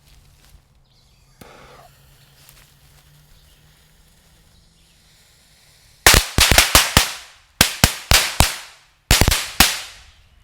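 A pack of Shogun maximum load flashlight crackers going off: about six seconds in, three rapid bursts of sharp, loud bangs, several cracks in each burst, with short gaps between the bursts.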